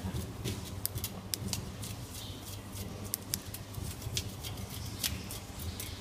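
Irregular sharp clicks and light scrapes of a kitchen knife working fish on a wooden chopping block, over a steady low hum.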